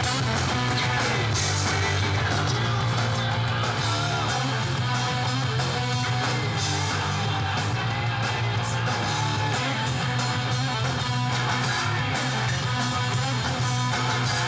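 Rock band playing a song, led by electric guitar over a steady bass guitar line.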